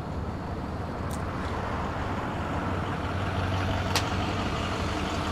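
Road vehicle running: steady engine and road noise that grows a little louder toward the middle, with a sharp click about four seconds in.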